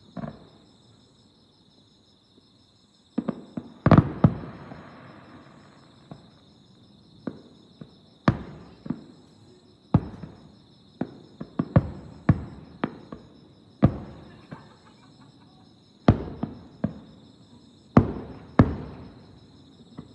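Aerial firework shells bursting at a distance: a string of about twenty sharp booms, each trailing off in echo, with dense clusters a few seconds in, in the middle, and near the end.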